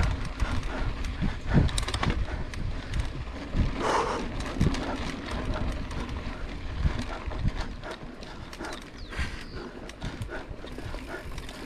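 Mountain bike ridden over bumpy grass: a run of irregular knocks and rattles from the bike over a low rumble of tyre and wind noise.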